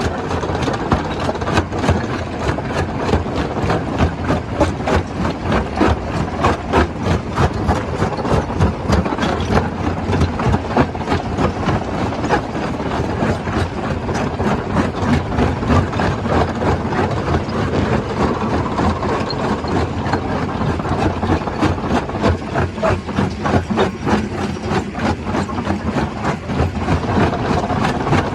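Stone crusher running, with a steady mechanical drone under a dense, irregular clatter of sharp knocks from rock being crushed.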